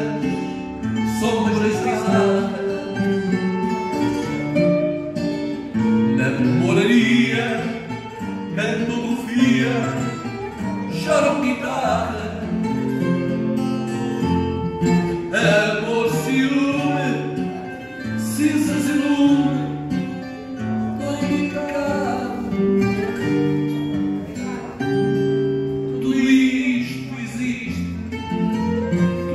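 A man singing fado into a microphone, amplified, over plucked guitar accompaniment.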